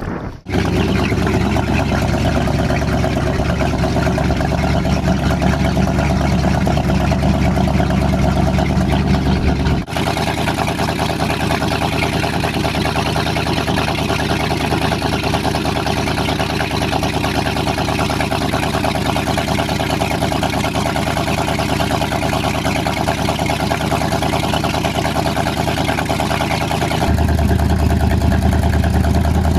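1972 Sidewinder 18SS jet boat's 455 Oldsmobile V8 running at a steady engine speed. The sound shifts abruptly just after the start, about ten seconds in and near the end.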